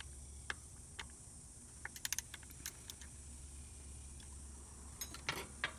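3/8-inch drive ratchet with a 6 mm Allen socket clicking in short runs as the scooter's final-drive drain bolt is tightened back in. There is a quick run of clicks about two seconds in and another near the end.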